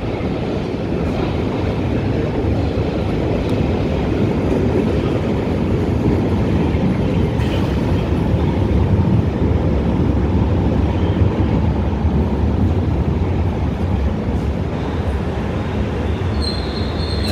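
London Underground Piccadilly line tube train pulling into a deep-level station platform out of the tunnel: a steady heavy rumble that grows louder toward the middle and eases slightly as it runs along the platform. A short high tone sounds near the end.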